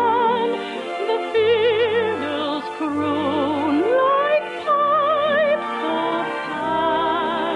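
A classically trained voice sings long held notes with wide vibrato in a slow romantic waltz song, over orchestral accompaniment. The recording sounds thin, like an old radio transcription, with no high treble.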